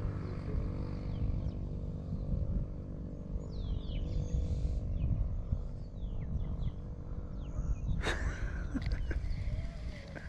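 Outdoor ambience: a low rumbling noise and a steady low hum, with faint short falling bird chirps in the middle and a single sharp click about eight seconds in.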